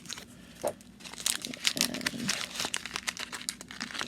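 Small plastic packaging crinkling in a stream of quick crackles as it is handled and opened, quieter at first and busier after about a second.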